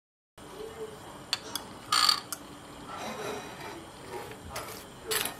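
Table knife spreading jam over crisp fried toast: a low rasping scrape, with a few sharp clicks and knocks of the knife, the loudest about two seconds in and another near the end.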